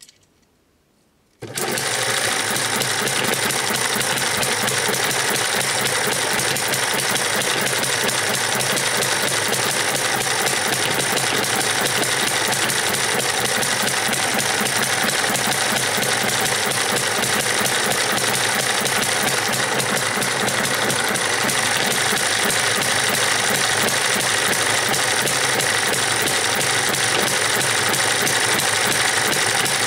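Eachine ET1 model hit-and-miss gas engine, spun up by its belt-driven 12 V DC starter motor, starts abruptly about a second and a half in and then runs steadily and fast with a loud mechanical clatter.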